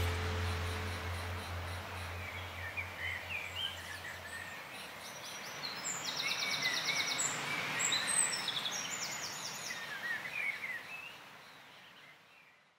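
Birds chirping and trilling over a steady outdoor hiss, while a low music drone dies away in the first few seconds. All of it fades out near the end.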